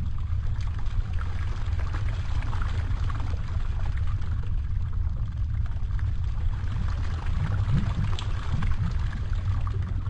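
Erupting Sundhnúkur volcano heard close up: a steady low rumble with scattered crackling over it.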